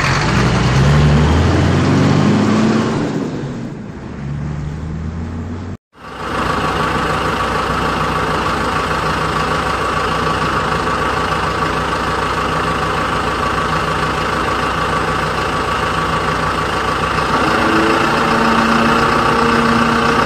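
Steady engine running sound, like a truck idling, cut off briefly about six seconds in; near the end a second, higher hum joins it.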